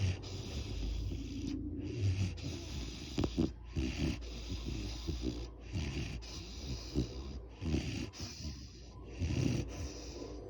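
A Great Dane snoring while asleep: a rough, rattly snore on each breath with an airy hiss, repeating about every two seconds.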